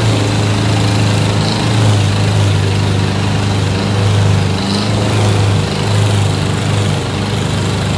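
A two-wheel walking tractor's engine runs steadily while towing a loaded passenger trailer over a bumpy dirt track. Its deep, even hum wavers slightly in pitch as the load changes.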